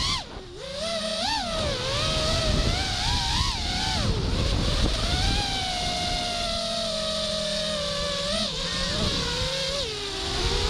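5-inch FPV quadcopter's brushless motors and propellers (Emax RS2205 2300kv on 5-inch props) whining as it flies, the pitch rising and falling with the throttle. It chops off to a low dip just after the start, climbs back, and holds a steadier, slowly falling whine through the middle, over wind rush.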